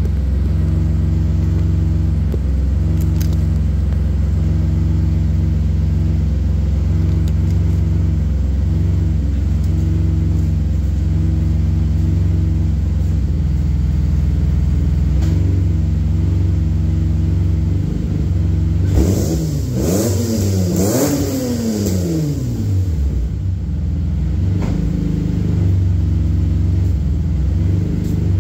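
4th-generation Nissan Maxima V6 with headers, Y-pipe and straight-pipe exhaust idling steadily. About two-thirds through it is revved twice in quick succession, the pitch rising and falling back to idle each time.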